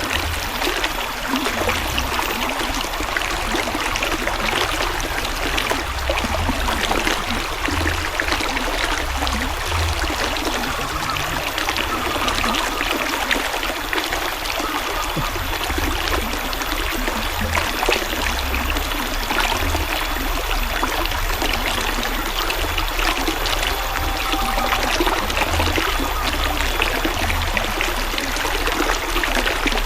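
River water flowing steadily, a continuous even trickling and splashing.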